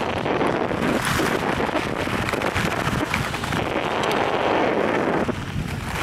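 Wind rushing over a helmet or body-mounted camera microphone during a fast descent of a groomed ski slope, with a hiss and scrape of packed snow beneath.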